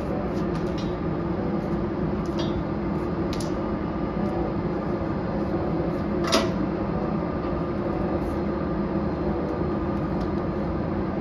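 Steady mechanical hum and rumble of airport ramp machinery, with a few light clicks and one sharper knock about six seconds in from handling the nitrogen servicing cart and hose.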